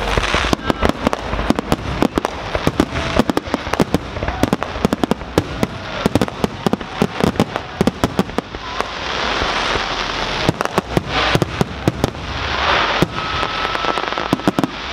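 Fireworks display: aerial shells bursting in rapid, dense volleys of sharp bangs for the first nine seconds or so, then fewer, more spaced bangs.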